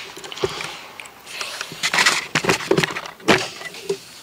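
Handheld video camera being passed from hand to hand: rubbing and fumbling on the body and microphone, with several sharp knocks and clicks, the sharpest near the end.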